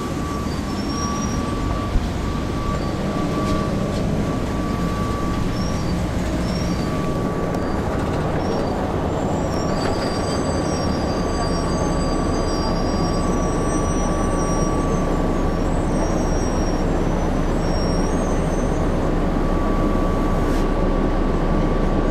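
A 1996 Nova Bus RTS transit bus heard from inside its cabin: the Cummins C8.3 diesel engine running steadily, with a steady whine and faint high squeaks through the middle, slowly growing louder.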